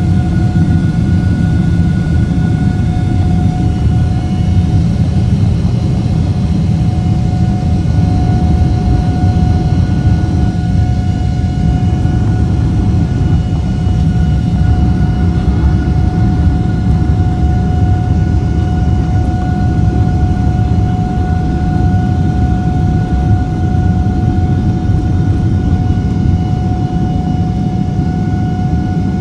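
Twin GE90 turbofans of a Boeing 777-200LR at takeoff thrust, heard from inside the cabin: a steady, loud, deep rumble with an even, steady fan whine over it.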